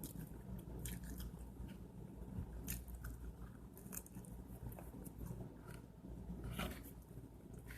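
A person chewing and biting food close to the microphone, with scattered small crunches and mouth clicks over a low steady hum.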